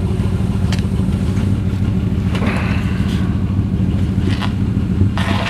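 Jeep Wrangler's engine running steadily at low speed as it creeps forward on gravel, with tyres crunching on the gravel. A brief rising whine comes a little past halfway.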